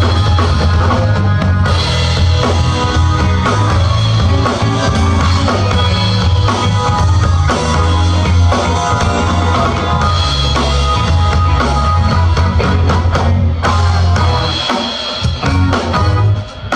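Live band playing through a PA, drum kit and bass guitar to the fore with guitar above them. It eases off briefly near the end.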